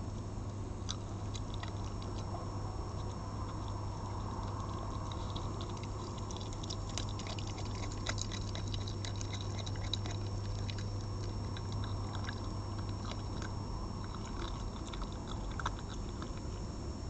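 Red fox eating from a plate of minced meat: scattered short chewing clicks and smacks, busiest in the middle, over a steady low hum.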